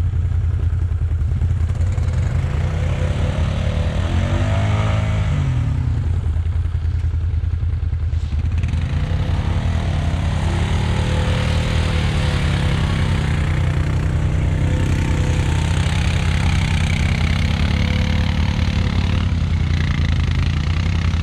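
Quad bike (ATV) engine running steadily under load, its revs rising and falling a couple of times as it crawls through soft bog.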